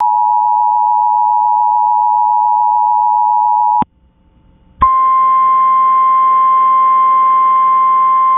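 Emergency Alert System attention signal: a steady two-tone chord that stops abruptly after about four seconds. After a second's pause, a single steady alert tone of the NOAA Weather Radio warning-alarm kind starts over a background hiss, signalling that a warning message follows.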